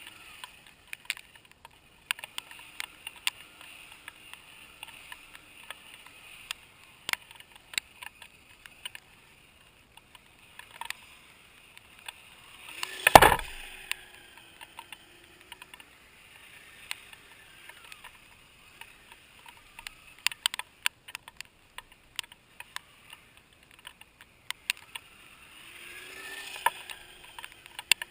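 Kyosho Blizzard radio-controlled snowcat's electric motor whirring, its pitch rising and falling, while its tracks click and slip on an icy crust. A loud rushing burst comes about halfway through.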